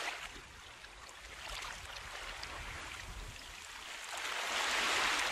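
Soft rushing of water. It dips about half a second in and swells again after about four seconds.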